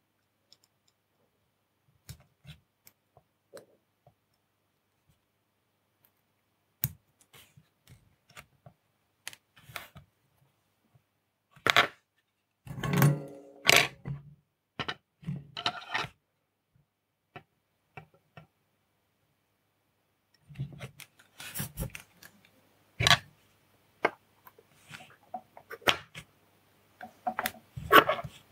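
Small clicks, taps and scrapes of tweezers, solder wire, a soldering iron and a circuit board being handled on a desk while a surface-mount capacitor is placed and soldered by hand. The clicks start after a couple of seconds of near silence and come scattered, busier around the middle and toward the end.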